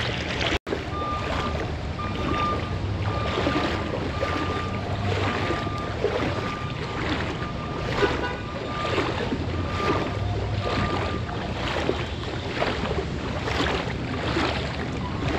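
Wading strides through deep floodwater, a splash and slosh of water with each step, about one and a half steps a second.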